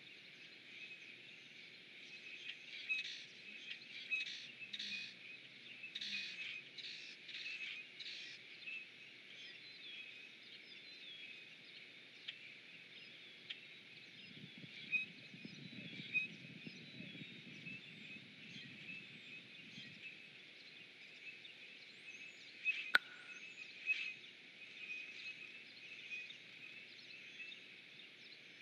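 Faint spring outdoor ambience: a steady chorus of many small, high chirping calls, with louder squeaky bird calls clustered in the first several seconds. A low rumble runs for about five seconds in the middle, and there is one sharp click about 23 seconds in.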